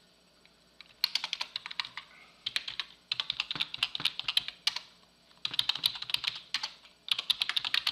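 Typing on a computer keyboard in several quick bursts of keystrokes with short pauses between them, starting about a second in.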